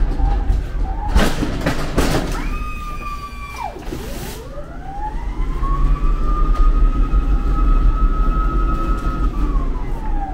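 Electric pallet jack working: a few knocks and rattles about a second in, a short motor whine that cuts off, then the drive motor whining up in pitch, holding steady for several seconds and winding back down near the end, over a steady low rumble.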